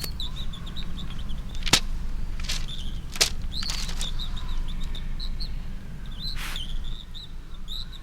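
Hand-made foley sound effects: a continuous run of short high-pitched chirps, like a small bird or mouse, with several sharp swishes or snaps at irregular intervals, over a steady low hum.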